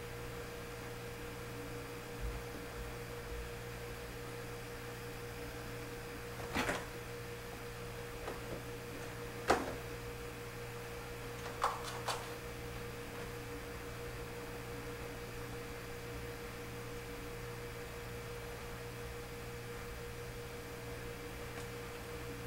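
Steady electrical hum with a faint steady tone, broken by a few soft knocks and scratches around the middle as kittens clamber on an exercise bike's seat and backrest; the sharpest knock comes a little before halfway.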